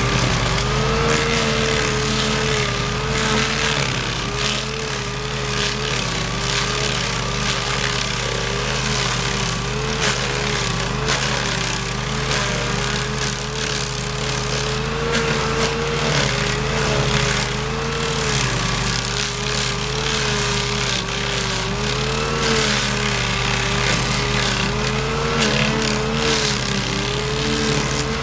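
Stump grinder running under load, its spinning cutter wheel grinding into a tree stump and spraying wood chips. A steady engine note that wavers slightly in pitch sits over a continuous grinding hiss.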